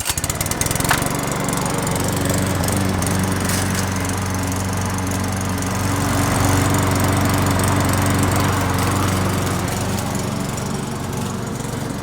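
ALDI Garden Line lawn mower's four-stroke overhead-valve engine running steadily under load while mowing grass. The mower had just been brought back to life by a carburettor clean and fresh fuel. The sound starts suddenly and holds an even pitch throughout.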